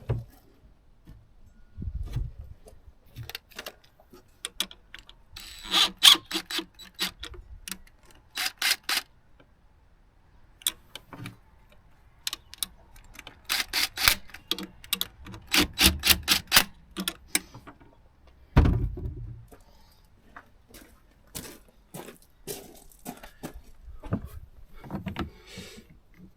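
Hand tools and metal parts being handled during work on an outboard motor: bursts of metallic clinks and rattles, with a few dull thumps.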